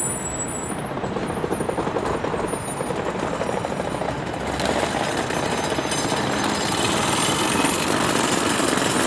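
Loud, rapid rattling hammering of city construction work, like a jackhammer, that grows louder and harsher about halfway through.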